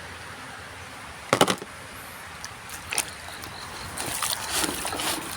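Plastic toys being handled: a sharp clatter about a second in, a single knock near three seconds, then irregular rustling and clicking near the end.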